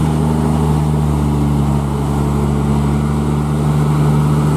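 Scania P380 truck's straight-six diesel engine under heavy load, pulling a lowbed trailer with a crane slowly uphill. The engine drones loud and low at a steady pitch.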